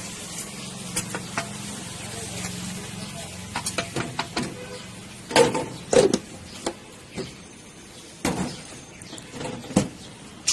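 Plastic blender jugs and lids knocked and clattered as they are handled on a counter, with a few sharp knocks standing out in the second half, after a spoon scraping in a plastic tub of powder. A low steady hum sits underneath in the first few seconds.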